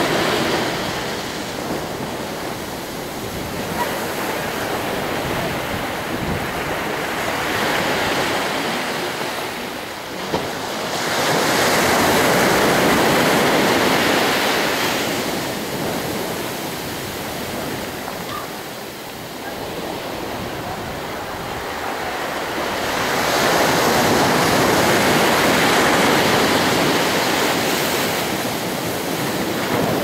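Atlantic surf breaking and rushing up a sand beach close by, swelling loud three times, about twelve seconds apart. Near the end a wave washes right up over the microphone.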